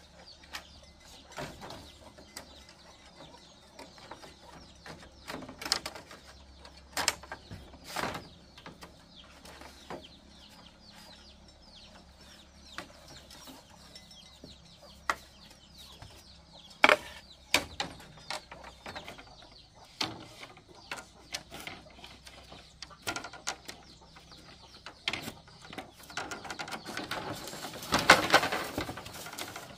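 Birds chirping faintly, with scattered sharp knocks and clicks and a louder rustling stretch near the end.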